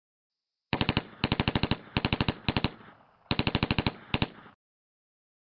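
Six short bursts of rapid bangs, about a dozen a second, like automatic gunfire. They start under a second in and cut off abruptly near the end.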